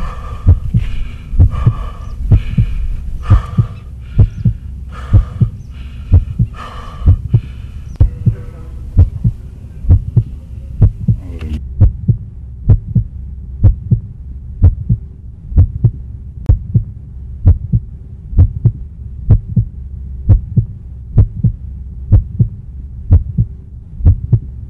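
Soundtrack heartbeat effect: low double thumps about once a second over a steady low drone. For the first half, a higher pulsing tone sounds with each beat, then cuts off suddenly.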